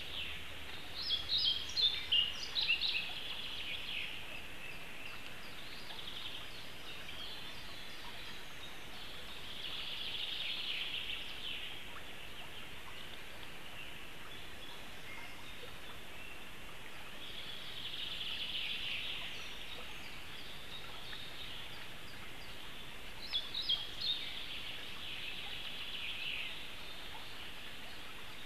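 Songbirds singing in forest: a steady background chorus of high, distant song, with short chirping phrases about a second in and again near the end.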